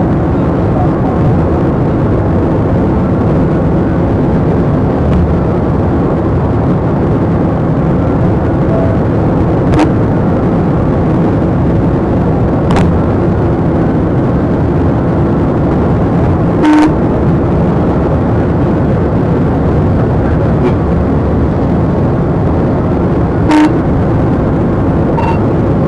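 Steady road and engine noise of a police cruiser driving at highway speed during a pursuit. Brief tone blips cut in a few times, loudest twice, a little past the middle and near the end.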